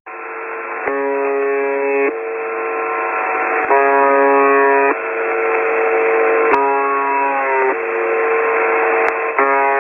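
EAS-style emergency alarm tones over loud static hiss, sounding band-limited like a radio broadcast. A single steady tone and a chord of several tones take turns about every second to second and a half.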